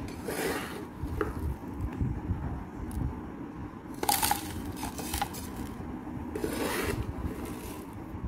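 Soil mix of red earth, sand and cocopeat being poured by hand into a container pot, a gritty rustle of soil and grit landing, in about three separate pours.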